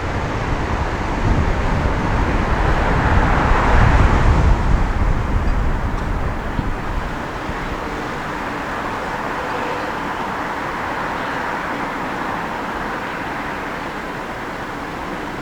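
Road and traffic noise with wind rumble on a camera mic mounted on a moving van's roof. It swells loudest a few seconds in, then settles into a steadier, quieter hum over the second half.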